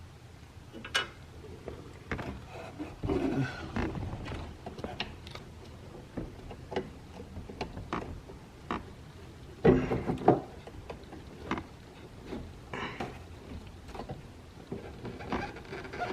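Plastic window slider glides being handled and pushed onto a car window's metal rail: scattered clicks, knocks and rustling, with the loudest clusters about three seconds in and again near ten seconds.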